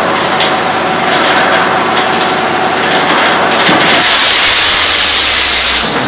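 Firewood processor machinery running with a steady hum. About four seconds in, its large circular saw blade bites into a redgum hardwood log and a loud, even hiss of sawing takes over.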